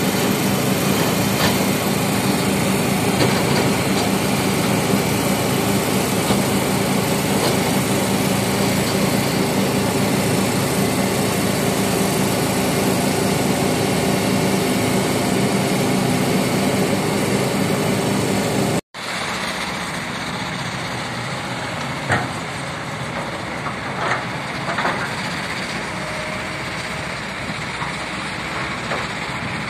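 Heavy construction machinery's diesel engine running steadily. About two-thirds of the way in the sound cuts to a quieter engine, with a few short knocks.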